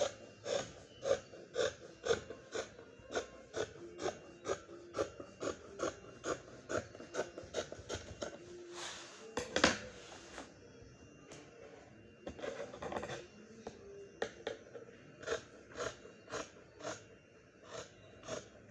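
Scissors cutting through fabric on a table: a steady run of snips, about three a second. About nine seconds in there is a louder snap with a rustle of the cloth being handled, then the snipping goes on.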